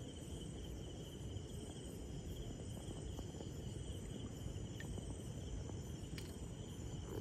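Crickets chirring steadily, a continuous high trill, over a low background rumble.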